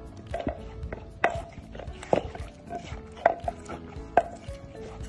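A wooden pestle pounding tomatoes, long beans and chilies for papaya salad in a deep wooden mortar: dull knocks about once a second, over background music.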